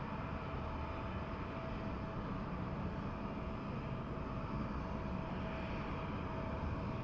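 Steady airport jet noise: a constant low rumble of distant airliner engines with a faint steady whine.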